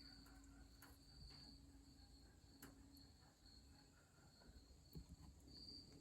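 Near silence, with a faint, steady, high-pitched cricket trill and a few faint clicks.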